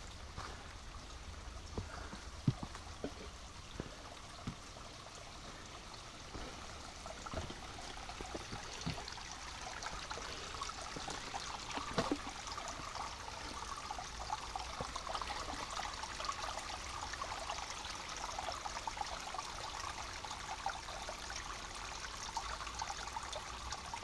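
Footsteps on a rocky trail in the first few seconds, then a small stream trickling among rocks, growing louder from about eight seconds in.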